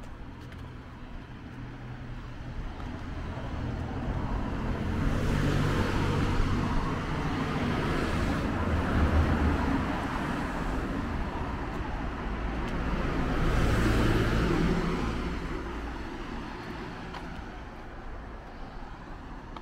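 Road vehicles passing on a street: one swells up and fades a few seconds in, and a second passes louder a little after the middle, with a low engine hum under the tyre noise.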